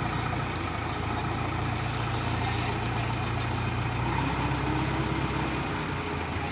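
Heavy diesel engine running steadily at low revs, its pitch dropping about four seconds in.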